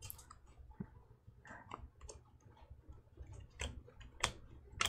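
Topps Chrome baseball cards being flipped through by hand: faint, irregular clicks and snaps as the card edges slide off one another, with a few louder clicks in the second half.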